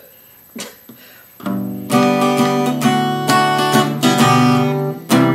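Acoustic guitar strumming chords, coming in about a second and a half in as a song intro. A short hiccup comes just before the guitar starts.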